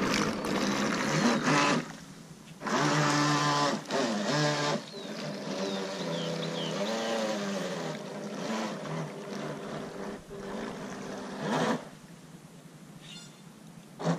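Radio Ranger RC fishing boat's motor running in bursts, its pitch rising and falling as the throttle is worked, with short breaks between runs.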